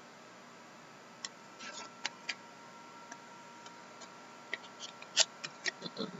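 Trading cards and packs being handled: scattered light clicks and taps with a couple of brief rustles, the clicks coming closer together near the end.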